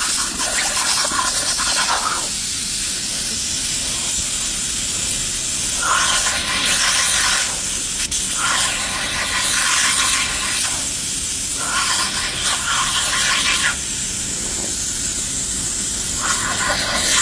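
A loud, steady hissing noise that brightens in stretches of one to two seconds, five or six times over.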